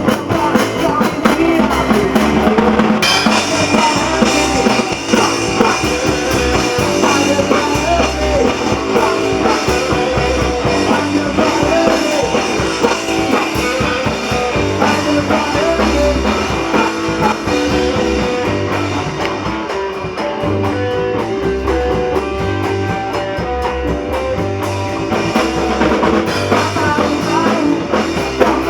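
Punk rock band playing with drum kit and electric guitar. The sound brightens in the treble about three seconds in.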